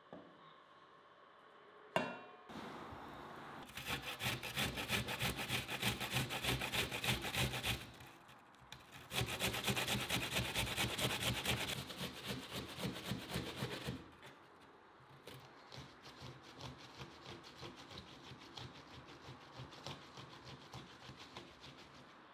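An onion being grated on a metal box grater: rapid, rhythmic rasping strokes in long runs, with a short pause partway through and softer strokes in the last third. A single knock comes just before the grating starts.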